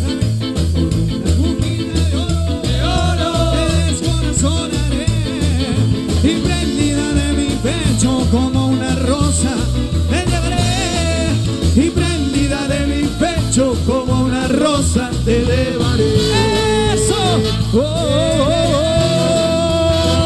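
Live cuarteto band playing, with a steady bouncing bass-and-drum beat, brass and keyboard, and a man singing over it.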